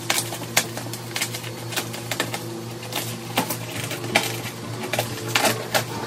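Scissors snipping and cutting through bubble wrap, with plastic crinkling and irregular sharp clicks.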